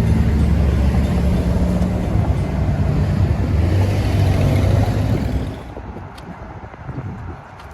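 Large marine diesel engine of a passing tug running with a steady low drone; the drone drops away sharply about five and a half seconds in, leaving a quieter rumble.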